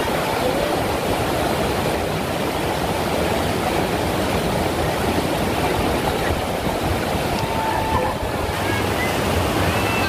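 Waterfall water rushing and splashing over rocks: a steady, dense wash of water noise.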